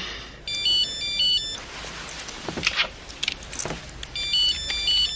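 Mobile phone ringtone: a short, high electronic melody of stepped beeps, sounding twice about three seconds apart, with faint handling clicks in between.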